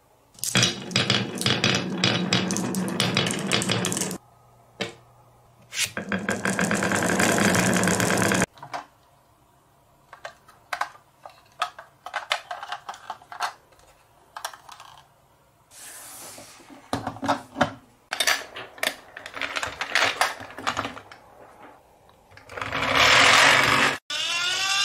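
Glass marbles rolling and clacking down a wooden wave-track marble run in two long spells. Then come scattered clicks and short rattles of plastic toy trucks being handled, with a louder rattling rush near the end.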